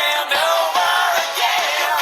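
Background music: a pop-rock song with a steady beat and sung or chanted vocals.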